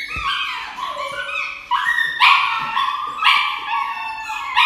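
A dog crying out in a string of high-pitched yelps and howls, one after another: distress while it is held for an injection.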